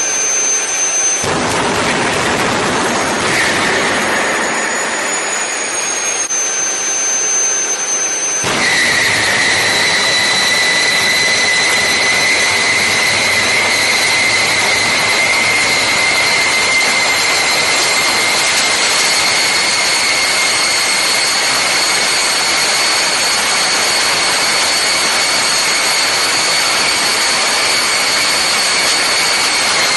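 Small jet engine on a test stand running: a loud rushing blast with a high steady whine. About eight seconds in the sound fills out and the whine drops to a lower steady tone that creeps slightly higher as the engine fires hotter.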